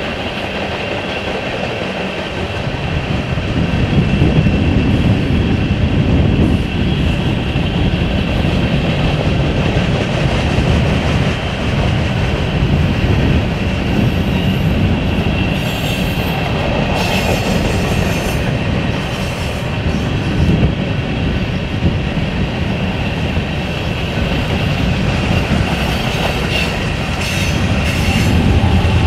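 Freight train cars, tank cars and then covered hoppers, rolling past close by: a continuous heavy rumble of steel wheels on rail that swells a few seconds in. A steady high-pitched ringing runs throughout, with brief high squeals from the wheels in the second half.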